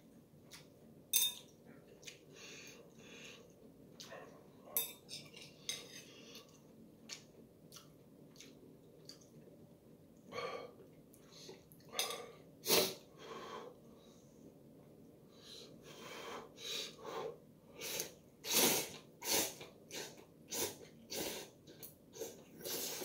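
A person eating instant ramen noodles at close range: irregular slurps, chewing and breaths, with utensils clinking on a ceramic bowl. The sounds come sparse at first and grow busier through the second half.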